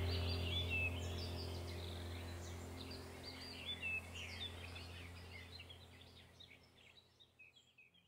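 Background soundtrack of birds chirping over a low steady drone, the whole track fading out gradually to near silence near the end.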